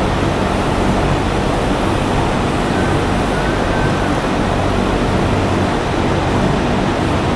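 Loud, steady rushing noise with a low hum underneath: workshop background machinery or ventilation running. It does not rise, fall or break.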